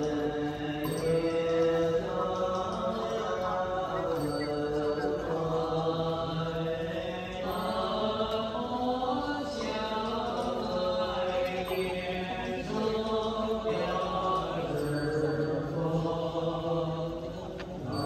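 Buddhist chanting by a group of voices, slow sustained notes that shift pitch phrase by phrase.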